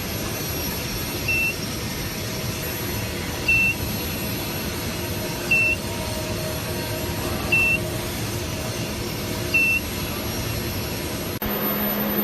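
An electronic beeper giving five short, high beeps about two seconds apart over steady machine noise. Near the end the sound cuts suddenly to a steady low hum.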